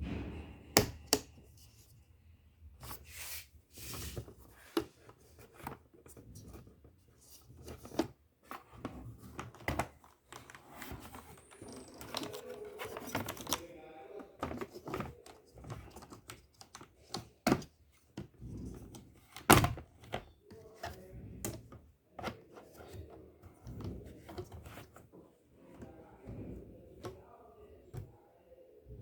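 Keys of a Corsair K68 mechanical keyboard with Cherry MX Red switches being pressed in irregular, uneven keystrokes, with a few louder thuds among the clicks.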